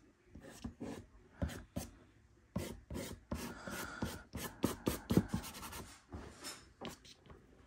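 Nupastel hard pastel stick stroking across Clairefontaine pastel paper: a run of short, quick strokes at an irregular pace, busiest in the middle.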